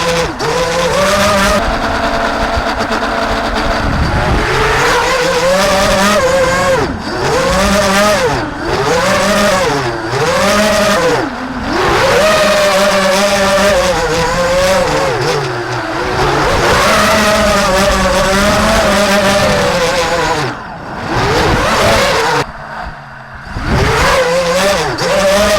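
Brushless motors and propellers of an FPV quadcopter whining in flight. The pitch swoops up and down over and over as the throttle changes. Twice near the end the whine drops away almost entirely for a moment.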